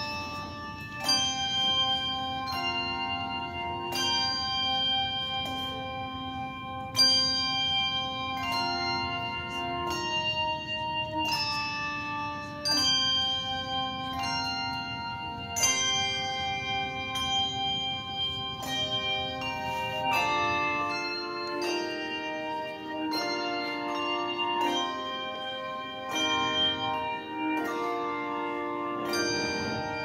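A handbell choir playing a tune: struck handbells ringing and overlapping in chords that change about every second. About two-thirds of the way through, lower bells join and the notes come quicker.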